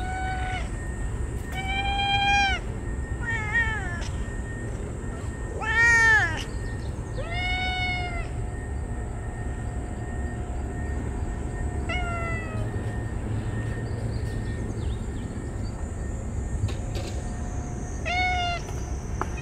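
Stray cats meowing repeatedly, about seven separate meows a couple of seconds apart, some short and falling, one long and drawn out about eight seconds in, the loudest about six seconds in. These are the excited meows of stray cats greeting the person who has come to feed them.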